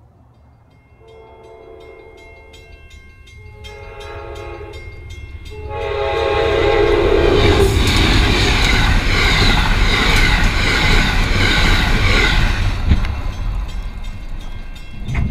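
Amtrak P42 diesel locomotive sounding three long horn blasts for a grade crossing, the last one dropping in pitch as it reaches the crossing, while the crossing bell rings. The train then passes at speed right beside the microphone, a loud rush and rumble of locomotive and cars lasting several seconds before it fades.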